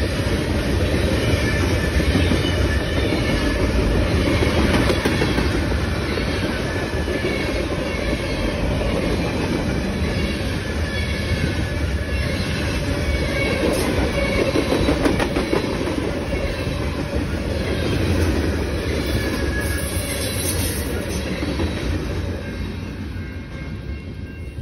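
Freight train of covered hopper cars rolling past close by: a steady, loud rumble and clatter of steel wheels on the rails, fading over the last couple of seconds.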